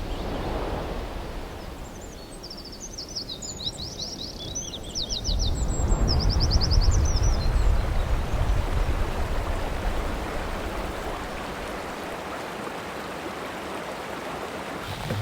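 Outdoor ambience: a bird sings a few bursts of rapid, evenly repeated notes in the first half, over a steady low rushing noise that swells in the middle and then settles.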